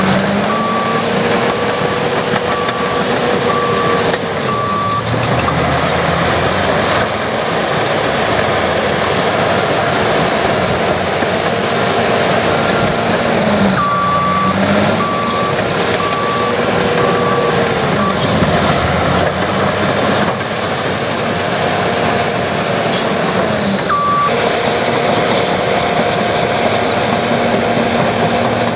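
Heavy construction machine's diesel engine running under load, its pitch dipping and rising as it changes revs, with a reversing alarm beeping in runs of short beeps, roughly one a second. The runs come at the start, about halfway through, and once briefly near the end.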